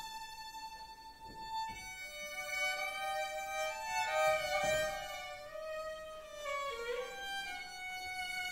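Violin playing a slow melody of long held notes, the first sustained for about two seconds, with piano accompaniment.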